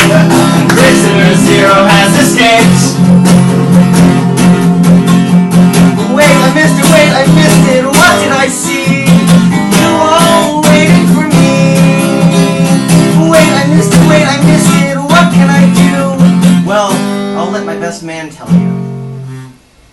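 Acoustic guitar strummed steadily through a song, which winds down and stops with a last chord just before the end.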